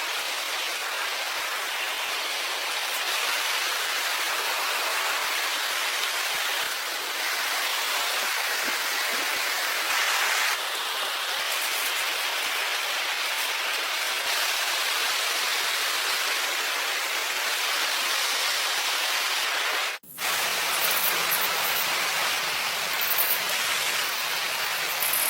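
Steady hiss of water, rain or rushing water. It cuts out for an instant about twenty seconds in, then comes back with a deeper rumble.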